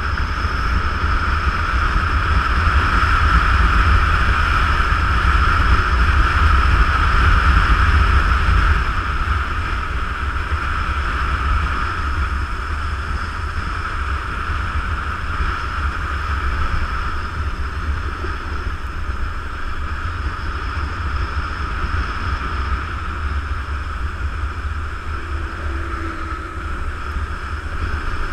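Wind buffeting the camera microphone on a moving motorcycle, with steady engine and road noise underneath. It is loudest for the first eight seconds or so, then drops a little about nine seconds in.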